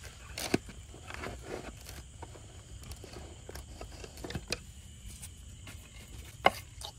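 Scattered light knocks and clicks at an irregular pace, with a sharper knock about half a second in and another near the end.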